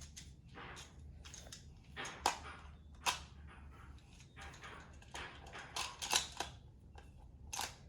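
Plastic magnetic building tiles clicking and clacking together as they are handled and snapped into place, an irregular run of sharp clicks with a few louder snaps.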